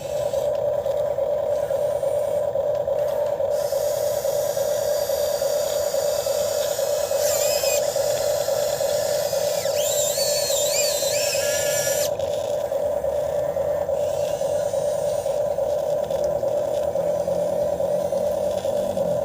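RC excavator's electric motors whining steadily while it digs, with higher wavering squeals from about seven to twelve seconds in.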